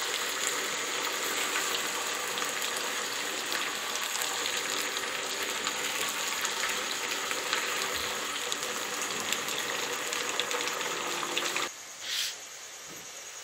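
Sliced potatoes frying in hot oil in a pan: a steady, dense sizzle full of fine crackles, which drops away suddenly near the end.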